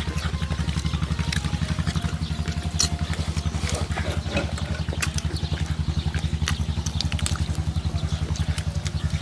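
An engine running steadily at idle, a fast, even low throb, with scattered wet clicks and smacks of someone eating meat off the bone by hand.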